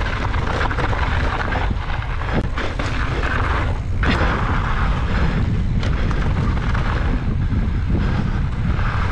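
Mountain bike being ridden on a dirt trail: a steady wind rumble on the microphone over tyre noise, with scattered knocks and rattles from the bike.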